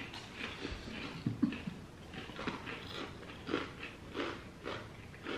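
Crisp, cracker-like Ritz Toasted Chips being bitten and chewed: a string of irregular small crunches.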